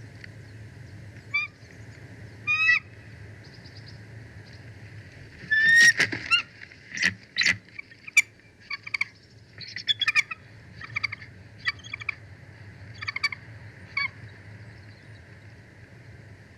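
Bald eagle calling: two short high calls, then a loud run of sharp, piping chirps in a chattering series that trails off near the end.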